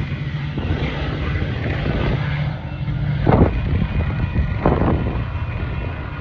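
A steady low engine hum with street-traffic rumble, then two dull thumps about a second and a half apart, a little past halfway.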